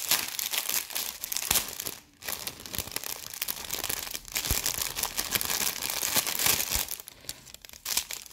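Clear plastic packaging crinkling and crackling as it is handled and pulled open by hand, with a few brief pauses.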